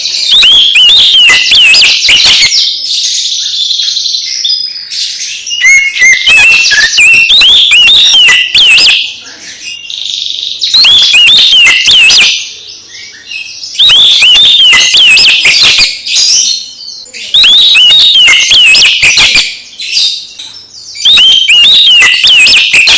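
Oriental magpie-robin (kacer) singing loud, rapid phrases of varied whistles, trills and sharp chattering notes. About six phrases of two to three seconds each, with short pauses between.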